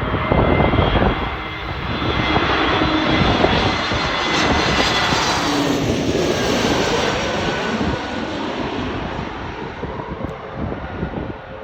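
Airbus A320 airliner on landing approach passing low overhead, its jet engines rising to a loud roar with a whine, then fading as the pitch falls away after it passes. Wind buffets the microphone.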